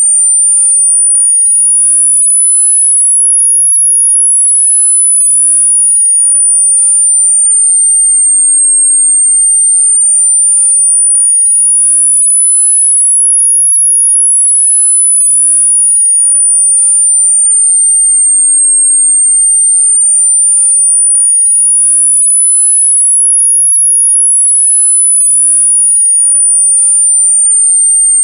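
Synthesized tinnitus masking sound: a single very high pure tone that glides slowly up and down in pitch, peaking about every ten seconds and doing so three times here, steady in loudness.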